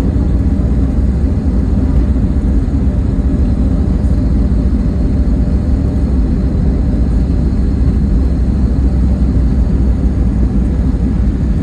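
Cabin noise inside an Airbus A320neo rolling on the ground after landing: a steady low rumble from the wheels and engines.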